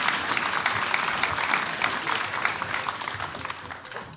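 A congregation applauding, the clapping thinning and dying away near the end.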